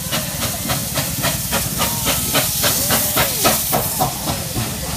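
Steam locomotive working hard: rapid exhaust chuffs, about five a second, over a steady hiss of steam.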